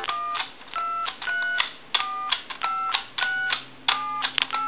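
Touch-tone keypad of a Mickey Mouse telephone dialing through the digits one after another: a short two-tone beep with a key click for each press, about two a second, the pitch pair changing with each key. Each key gives its proper tone pair after a keypad repair.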